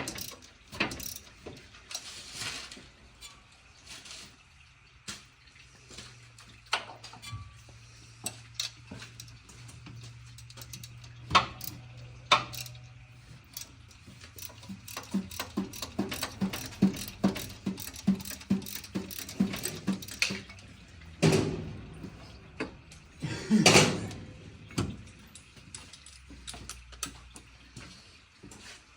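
A hand socket ratchet clicking in short runs, amid the clatter of hand tools and parts, with a few louder knocks.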